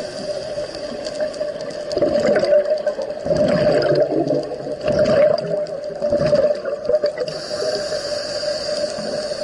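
Underwater sound of a scuba diver's exhaled bubbles gurgling out of the regulator in several irregular bursts, over a steady hum.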